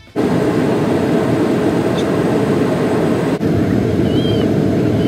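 Jet airliner cabin noise heard at a window seat beside the wing engine: a steady, loud rush of engine and airflow. It cuts briefly about a third of the way in, then carries on the same.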